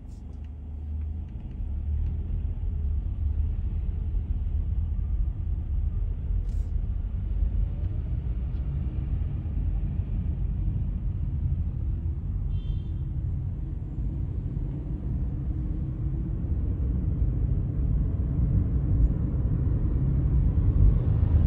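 Steady low rumble of a car driving along the road, engine and tyre noise, growing louder over the first two seconds as it picks up speed.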